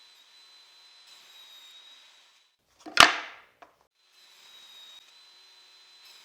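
Power saw running with a faint steady whine, and about three seconds in one quick, loud cut through a thin piece of wood lasting under half a second, followed by a faint click.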